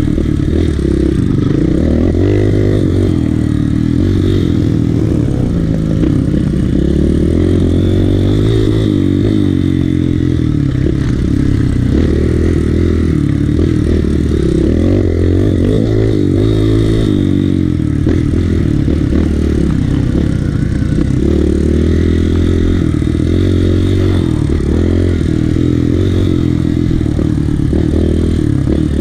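Kawasaki KLX150 dirt bike's single-cylinder four-stroke engine under way on a motocross track. Its pitch rises and falls over and over as the rider works the throttle and gears through the hills and turns.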